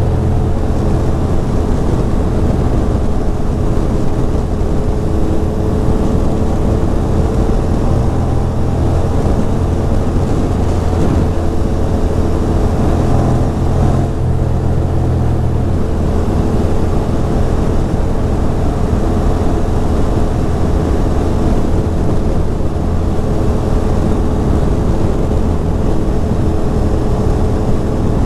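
A 2006 Ducati Monster 620's air-cooled L-twin engine running at a steady cruise under a rush of wind noise.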